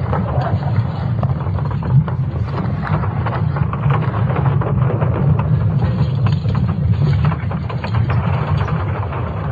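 Sonified recording of Earth's magnetic field from ESA Swarm satellite data: a steady deep rumble with irregular creaking and crackling on top.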